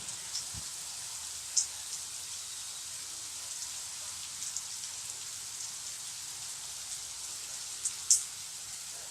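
Steady rain falling, an even hiss, with a few sharper ticks of drops striking close by, the loudest about a second and a half in and near the end.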